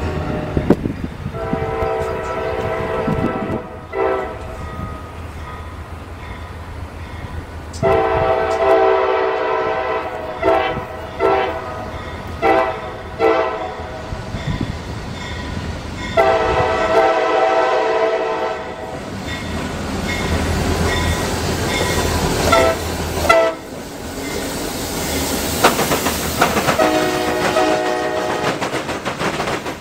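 Diesel locomotive air horn sounding a series of long and short blasts, over the low rumble of a train on the rails.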